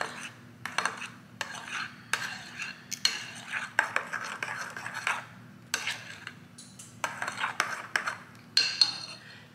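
Metal spoon stirring runny pumpkin bread batter in a glass mixing bowl, clinking and scraping against the glass in an irregular run of taps.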